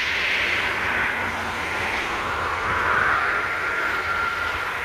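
Steady vehicle noise: a rushing hiss with a faint high whine running through it, swelling slightly about three seconds in.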